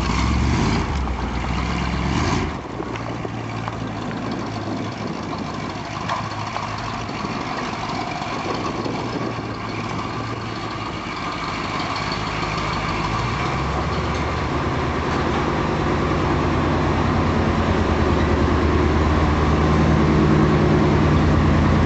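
A 1965 Ford Thunderbird's 390 V8 engine running steadily. Its low note drops away about two and a half seconds in, then grows louder again from about fourteen seconds on.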